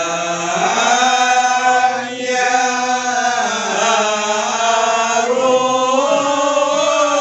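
Group of men chanting marhaban, the Malay devotional praise of the Prophet, together and unaccompanied, in long drawn-out notes that slowly rise and fall in pitch.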